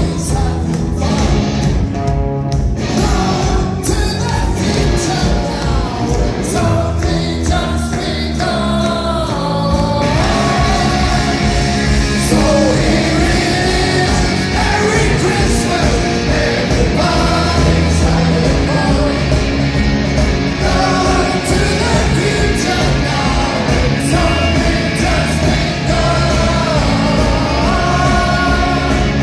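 A live rock band playing a song with sung vocals, electric guitars and drums, echoing in a large hall. About ten seconds in, the sound grows fuller and slightly louder.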